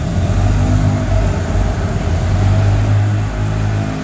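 Small ride boat's motor running with a steady low hum.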